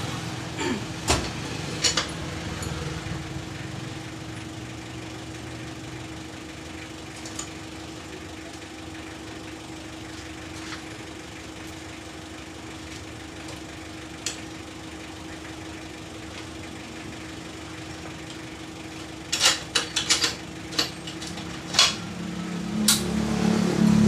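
Sharp metal clinks and knocks of tools and parts as a motorcycle's rear wheel is being refitted at the axle and chain adjuster: a couple at the start, then a quick run of them near the end, which are the loudest sounds. Underneath runs a steady background hum that swells near the end.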